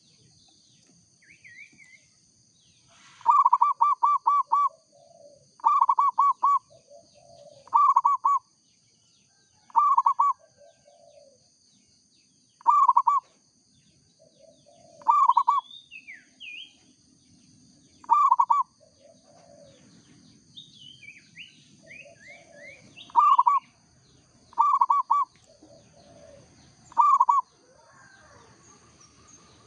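Zebra dove (perkutut) cooing over and over: a loud, fast-stuttering coo about every two seconds, with softer lower coos between. Other small birds chirp in short bursts, over a steady high-pitched whine.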